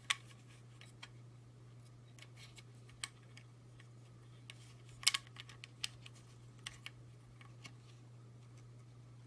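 Hard plastic toy parts clicking and tapping as they are handled and snapped into place, in scattered single clicks with the loudest cluster about halfway through, over a steady low hum.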